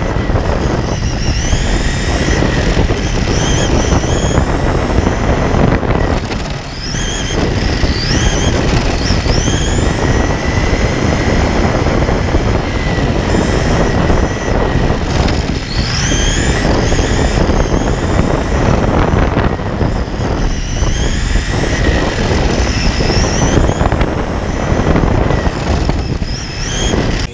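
Several electric RC touring cars running on the track: their brushless motors whine up in pitch again and again as the cars accelerate, over a steady noisy rush.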